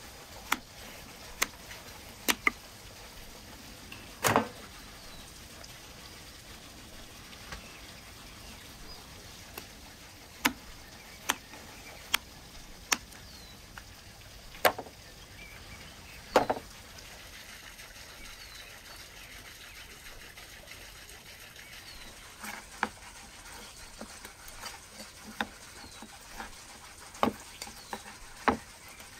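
Butchering beef ribs with a large knife and cleaver on wood: irregular sharp clicks and knocks of the blade against bone and the wooden block, the loudest about four seconds in and again past the middle. Birds chirp faintly in the background.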